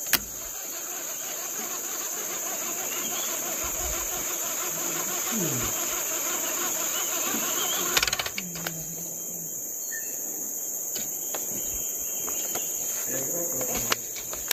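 Insects keep up a steady, high-pitched drone. Over it, a rushing noise fills the first eight seconds and ends in a sharp click, and a few fainter clicks follow.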